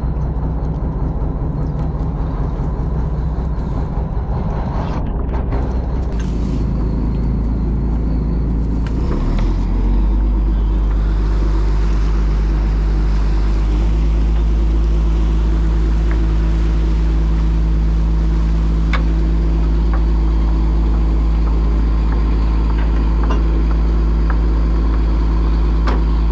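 Fishing boat's engine running, a low steady drone that gets louder about ten seconds in and settles into an even note a few seconds later.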